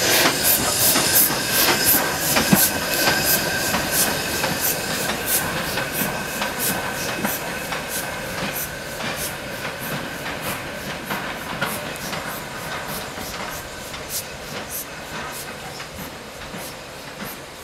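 Steam locomotive running past and away along the track, its wheels clicking rhythmically over the rail joints with a steady thin whine, fading gradually as it recedes.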